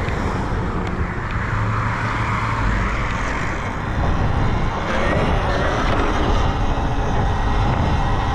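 Wind rushing over the microphone of a rider on a moving Talaria Sting R electric dirt bike: a steady rush with a heavy low rumble, and a faint rising whine about five seconds in.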